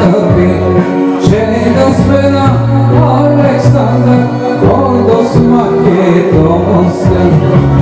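A man singing into a microphone over instrumental accompaniment, with a percussion hit every second or so.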